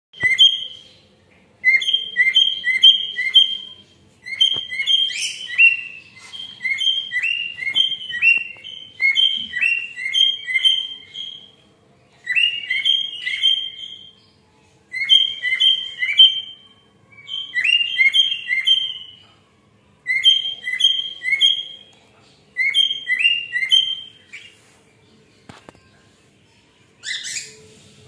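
Cockatiel singing: short clipped whistled notes in quick runs of three to five, each run repeated every two to three seconds. A brief harsher call comes near the end.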